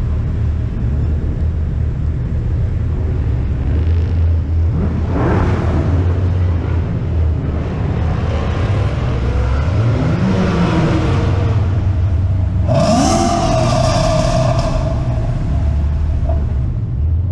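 Ford Mustangs driving in a convoy: a steady low engine rumble, with engines revving up three times, loudest about thirteen seconds in.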